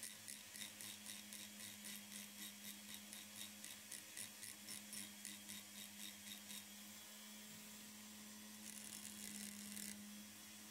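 Handheld rotary tool with a pink abrasive grinding stone, running faintly with a steady whine while grinding soft stone; a quick regular ticking of about four a second fades out after about six seconds, and a brief louder grinding hiss comes near the end.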